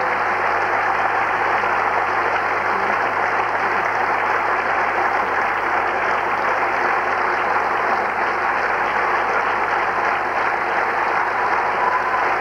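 Theatre audience applauding steadily, a dense even clapping that neither builds nor fades.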